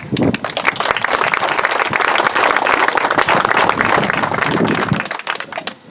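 A small crowd of a few dozen people applauding, the clapping dying away just before the end.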